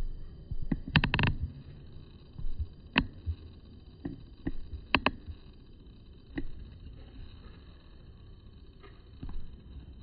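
Handling noise on a smartphone with a clip-on telephoto lens: irregular knocks and clicks, a quick cluster about a second in and then single knocks every second or so. Under them runs a low rumble and a faint steady high whine.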